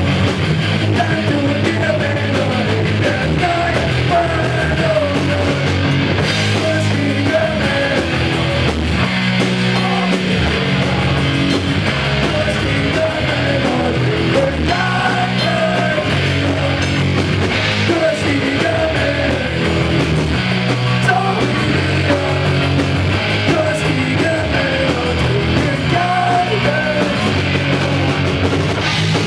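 Live metal band playing: electric guitars and a drum kit at a steady, loud level.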